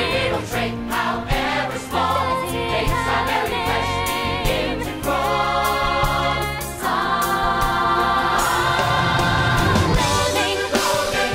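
Show-tune music: an orchestra with singing voices, holding long sustained notes through the middle.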